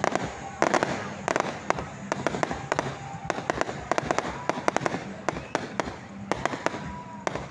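Fireworks going off in a rapid, irregular series of sharp bangs and cracks.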